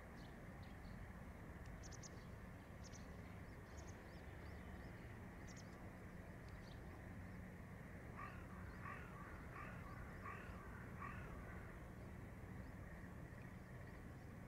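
A crow cawing about five times in quick succession, starting about eight seconds in, over a faint, steady low outdoor rumble. Short faint high chirps come and go in the first half.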